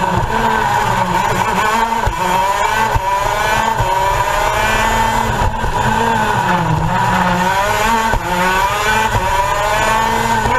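Onboard two-stroke racing kart engine revving, its pitch climbing and falling back again and again as the kart accelerates and slows through corners, with other kart engines running close by.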